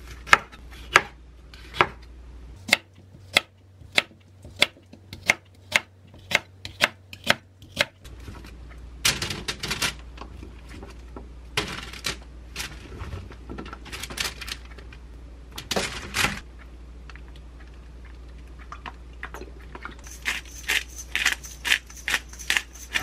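A chef's knife chops bell pepper on a wooden cutting board in steady strokes, about two a second, for the first eight seconds. Then parchment paper rustles and cut vegetables knock as they are laid in an air fryer basket. Near the end a pepper shaker rattles in quick shakes over them.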